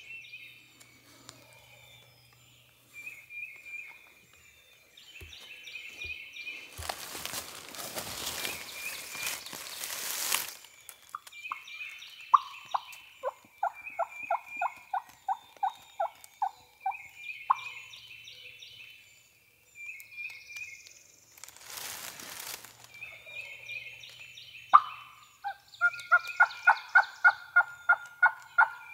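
Wild turkey calling: two runs of evenly spaced yelps, the second near the end louder and faster, with songbirds chirping steadily behind. Two bursts of rustling, most likely clothing brushing the microphone, come about a third of the way in and again later.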